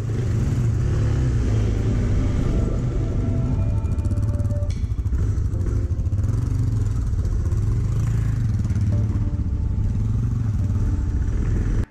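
Suzuki DR650 dual-sport motorcycle riding along a dirt track, heard from the bike's own camera: a steady low engine rumble mixed with wind on the microphone.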